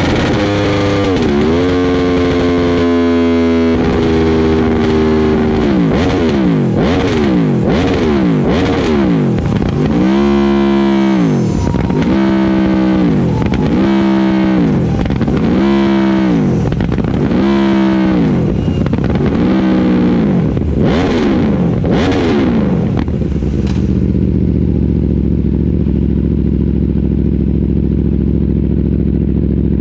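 Aprilia Tuono motorcycle engine through a Yoshimura Alpha-T exhaust. It winds down from high revs, then is blipped over and over, about a dozen quick rises and falls in pitch. About 24 s in it settles to a steady idle.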